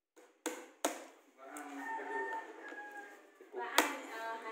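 A metal rod knocking against the rim of a plastic paint-bucket lid to pry it open: three sharp knocks, the loudest near the end.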